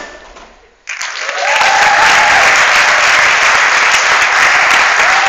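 Theatre audience applauding and cheering as a dance number's music fades out: the clapping breaks out suddenly about a second in and keeps going, with a couple of long cheers over it.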